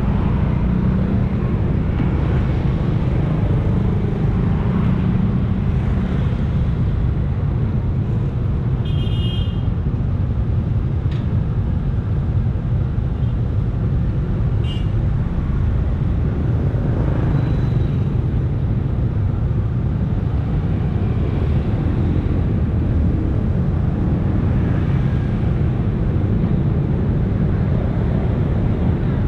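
Street traffic dominated by motorcycle and scooter engines idling and passing at a junction: a steady low rumble, with a brief high-pitched tone about nine seconds in.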